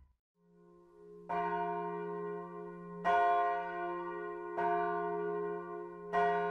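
A bell struck four times, about a second and a half apart, each stroke ringing on into the next, over a steady low drone.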